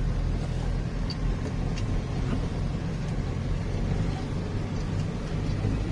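Steady low rumble of a road vehicle's engine and tyres while driving along, with a few faint ticks.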